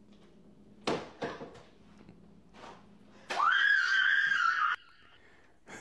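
A woman's high-pitched scream of fright, a little over three seconds in, held for about a second and a half and cut off abruptly. A few short knocks come about a second in.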